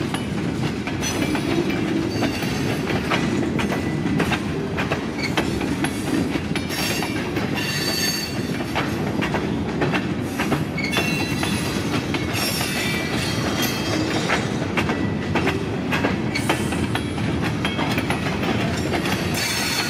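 Freight train of open-top cars rolling steadily past: a continuous rumble of steel wheels on rail, with rhythmic clickety-clack over the rail joints and a few brief high wheel squeals.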